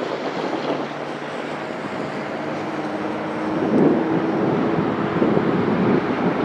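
Diesel freight locomotives approaching, their engine sound growing louder from about three seconds in as the train nears.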